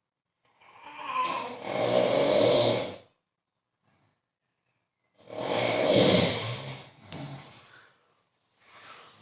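A man snoring very loudly: two long snores, each lasting about two and a half seconds with a short silent pause between them, and a third snore starting near the end.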